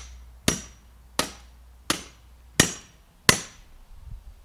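A laptop being struck with a metal rod: five sharp hits about 0.7 s apart, each with a brief high metallic ring.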